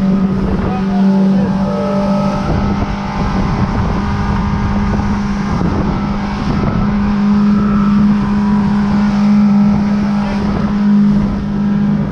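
Motorboat's outboard engine running at a steady cruising speed with a steady hum, over the rush of water and wind buffeting the microphone.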